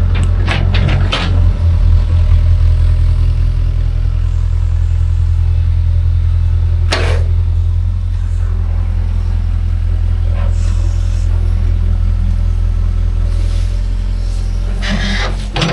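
Kobelco excavator's diesel engine running steadily with a deep drone, with a few sharp knocks: several in the first second or so, one about seven seconds in, and more near the end.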